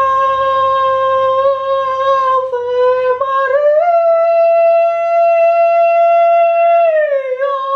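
A man singing high in a classical operatic (seriosa) style: one long held note that steps up higher about four seconds in, holds, and slides back down near the end.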